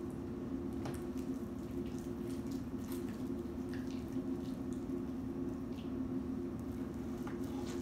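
Homemade glue slime being squeezed and pulled apart by hand, giving scattered small wet clicks and squelches over a steady low hum.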